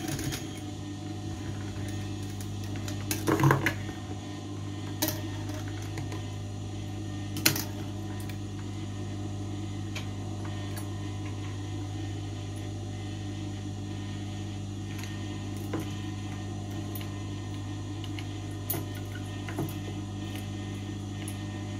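Sewing machine running steadily, stitching a seam in a slippery dress fabric, with a few sharp clicks and knocks, the loudest about three and a half and seven and a half seconds in.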